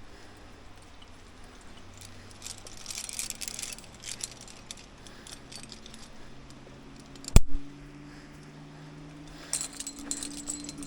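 Metal climbing hardware, carabiners and gear on a harness, jingling and clinking in two spells, with one sharp knock a little past the middle.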